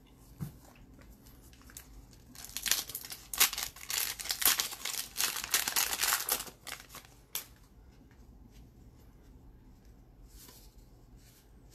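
Hockey card pack wrapper being torn open and crinkled, a dense crackling rustle for about five seconds, then a brief faint rustle near the end.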